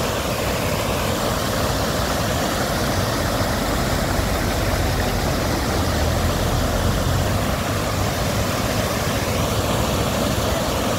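Mountain waterfall cascading over boulders: a loud, steady rumble of rushing water.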